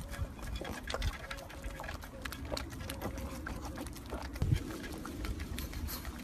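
Dry fallen leaves rustling and crackling as a pug runs through them, with a dull bump about four and a half seconds in.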